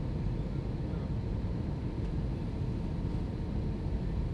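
Steady cabin noise inside an Airbus A321-231 on descent: a low rumble of its IAE V2500 jet engines and rushing airflow heard from a window seat, with a faint steady tone above it.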